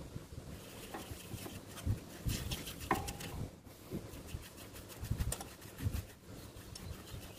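Paintbrush rubbing and dabbing liquid finish inside a turned wooden bowl held on a stopped lathe, with scattered light clicks and knocks from the hands and the chuck.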